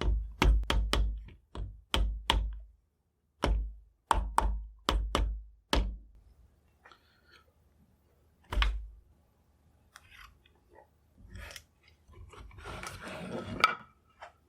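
Hammer tapping a metal rifle sling swivel down into a tight mortise cut in a walnut gunstock: about a dozen sharp taps in quick clusters, then one more after a pause. Near the end come a few softer knocks and a brief rustle.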